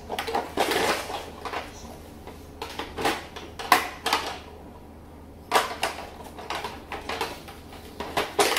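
Hard plastic parts of a VTech baby walker being handled and fitted together: irregular clicks and knocks, the sharpest about 3.7 and 5.5 seconds in, with some rustling early on.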